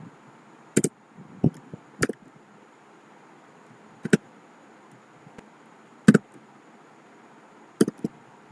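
Keys on a computer keyboard being pressed one at a time, slowly and irregularly, as a file name is typed, with a few quick presses close together near the end.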